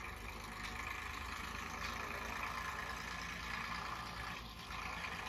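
Farm tractor's diesel engine running at a low, steady pace as the tractor drives slowly over rough ground, the sound easing off near the end.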